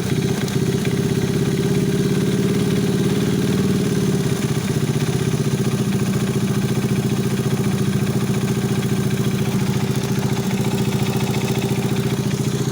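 Alfa 110 moped's single-cylinder four-stroke engine running steadily with a rapid clatter: a knock that remains despite a new cylinder head, a complete piston and cylinder set, a new timing chain with hydraulic tensioner and a new clutch assembly.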